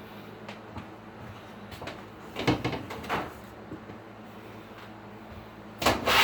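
A few short scraping, knocking noises over a steady low hum: a pair about two and a half seconds in, then a longer, louder one near the end.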